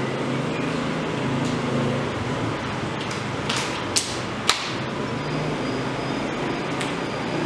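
Classroom room noise: a steady hum, broken about halfway by a few sharp clicks, the loudest two about half a second apart.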